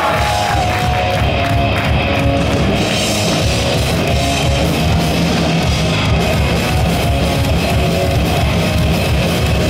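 Rock band playing live, with electric guitars and a drum kit, loud and steady.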